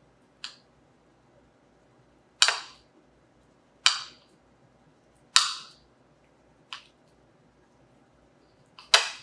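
Kitchen knife cutting through a rolled egg omelette and striking a ceramic dinner plate: six sharp clinks about one every second and a half, each with a brief ring. The first and fifth are faint; the one near the end is the loudest.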